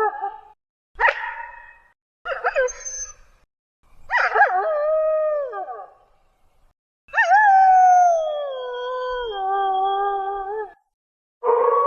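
Eurasian wolf howling: a wavering howl tails off at the start, then two short yelping calls, a howl that drops in pitch about four seconds in, and a long howl from about seven seconds that slides slowly down in steps. A new, steady howl begins just before the end.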